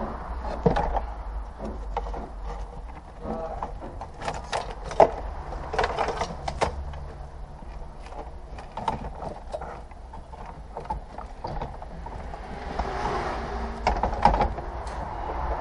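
Irregular clicks, knocks and clattering of car dashboard parts being handled and worked by hand, over a steady low hum.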